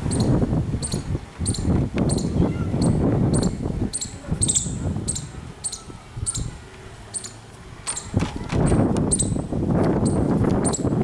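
Squirrel giving its clicking alarm call: short, sharp, high clicks repeated steadily, a little under two a second. A louder low rumble swells and fades beneath the clicks.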